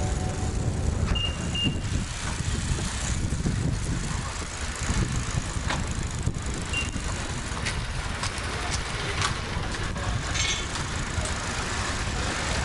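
Rumbling street noise picked up while riding a bicycle past road traffic, with wind buffeting the microphone. Two short high beeps sound about a second in.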